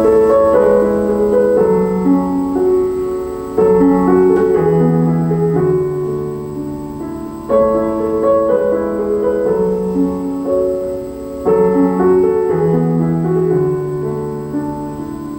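Piano music played through a Yamaha YHT-1840 5.1 home theater system and picked up by a microphone in the room. It is a phrase of struck notes that restarts about every four seconds.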